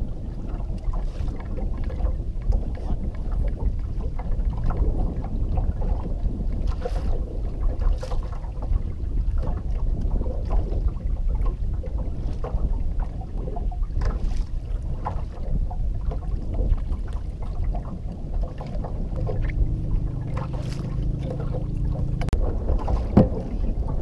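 Wind noise on the microphone and water slapping against the hull of a stationary fishing boat, with scattered small knocks. A low steady hum comes in for about three seconds near the end.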